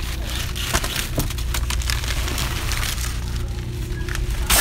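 Crackling and clicking of plastic-wrapped cases of bottled water being handled on a shelf, over a steady low hum.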